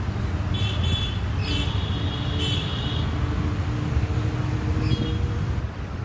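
Outdoor traffic ambience: a steady low rumble of road traffic, with a faint held tone from about a second and a half in until near the end, and a few short high chirps.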